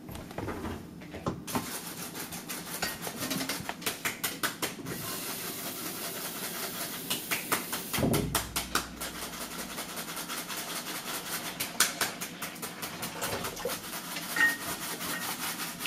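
Shoes stepping and shuffling on a laminate kitchen floor, with many light clicks and knocks and a low thump about halfway through, over a steady hiss.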